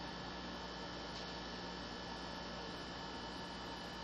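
Steady electrical hum with a faint hiss: the background room tone of the recording, with no other sound.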